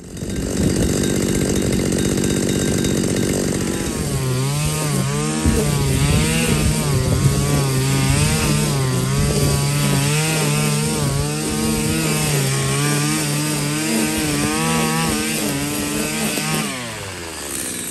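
Two-stroke string trimmer engine with a freshly repaired Zama C1Q carburettor, running cleanly. It idles steadily at about 2,850 rpm, then from about four seconds in revs up and down roughly once a second while cutting grass. Near the end it drops back.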